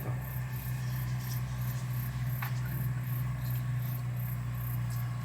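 Insects chirping in an even, very high-pitched pulse, about three to four chirps a second, over a steady low hum.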